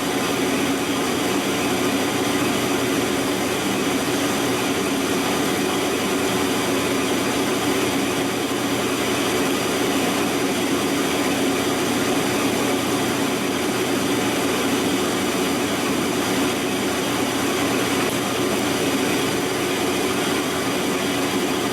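Big Monarch engine lathe running with a carbide insert taking an interrupted cut on a hardened steel tractor pinion shaft, the kind of cut that is destroying the inserts. It is a loud, steady, dense cutting noise with a steady hum underneath.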